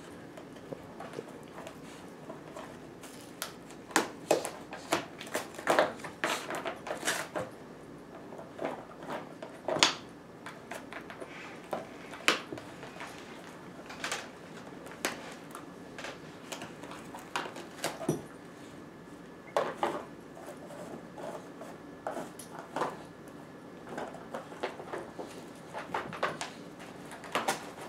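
A dog chewing and tearing at a small cardboard box: irregular crackles and rips of cardboard, thickest a few seconds in and carrying on in scattered bunches.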